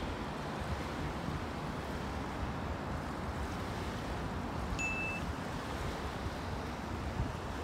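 Steady wind rumble on the microphone with small waves lapping at the shore. One short, high, steady beep about five seconds in.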